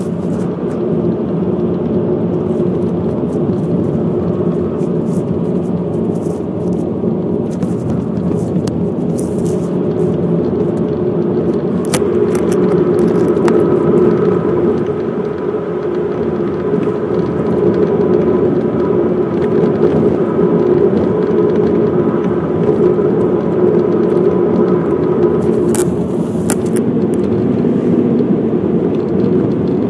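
Steady road and engine noise of a moving 2010 Mazda 3, with irregular light ticks and rattles coming from the windshield. The owner is waiting for Mazda to replace the windshield over this fault.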